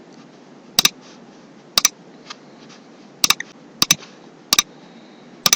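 Casio scientific calculator buttons pressed one at a time: six sharp clicks, some of them double, about a second apart, over a faint steady hiss.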